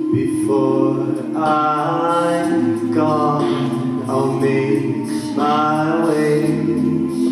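A cappella vocal group of men and women singing: low voices hold a sustained chord while higher voices sing short repeated phrases over it.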